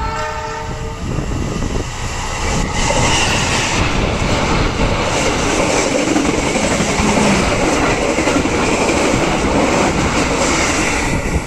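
Train running on the rails, loud and close: a short pitched tone in the first second, then a dense rolling noise that swells after about three seconds and drops off sharply near the end.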